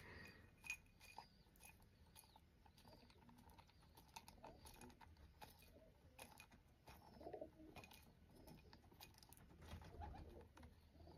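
Faint, irregular clicks and taps of a rock pigeon pecking seeds out of a glass jar.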